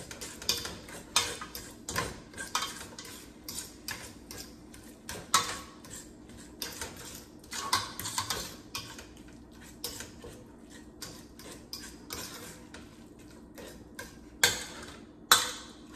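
A metal utensil scraping and clinking against a stainless steel pot as food is stirred in it, in an irregular run of clicks and scrapes, with two louder clanks near the end.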